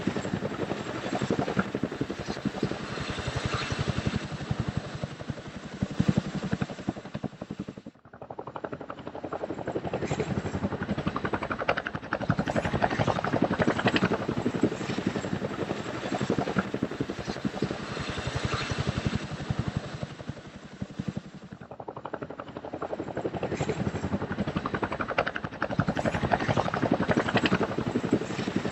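Helicopter in flight: rotor blades beating rapidly and evenly over the engine noise. The sound drops out sharply for a moment about eight seconds in and sags briefly around twenty-one seconds before coming back.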